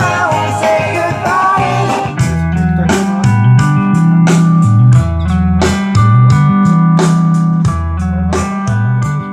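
Music playing loud through a Philips mini system under test after its audio output was replaced: a singing voice at first, then from about two seconds in strummed guitar chords in a steady beat over a moving bass line.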